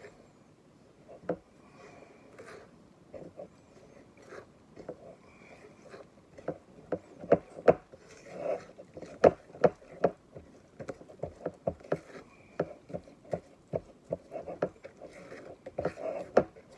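A utensil stirring a thick flour-and-milk batter in a mixing bowl, knocking against the bowl over and over; the knocks are sparse at first and come quick and steady from about six seconds in.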